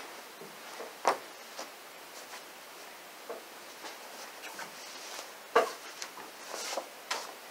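Hands handling and spreading a cloth on a table, with soft rustling and a few sharp clicks and taps, the loudest about a second in and again about five and a half seconds in, as a deck of cards and coins are set down on the cloth.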